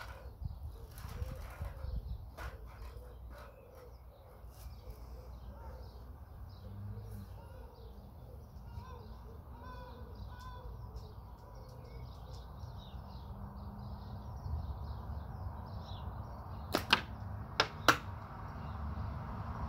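Wind rumbling on the microphone, then near the end two sharp cracks about a second apart from a catapult being shot.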